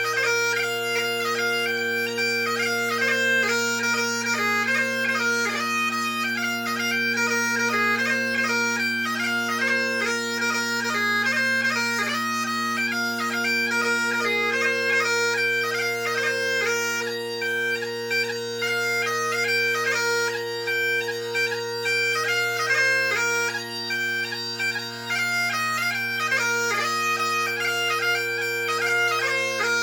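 Great Highland bagpipe playing a reel, the last tune of a march, strathspey and reel set: steady drones under a fast chanter melody with quick gracenote ornaments.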